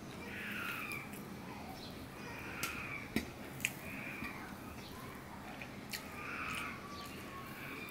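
A hand mixes rice and curried water-lily stems on a steel plate, giving a few sharp clicks against the metal. In the background an animal calls several times, each call a drawn-out falling cry.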